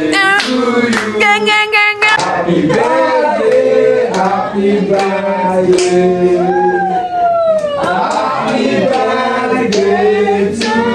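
A small group of men and women singing a birthday song together, with hand clapping.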